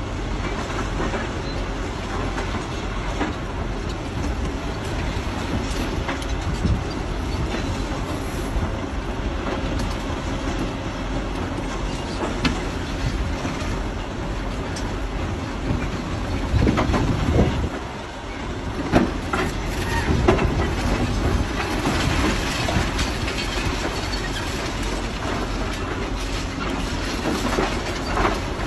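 Excavator engine running under load while its hydraulic shears crush concrete and stone, with irregular cracks and knocks of breaking concrete over a steady rumble. The crunching grows louder about two-thirds of the way through.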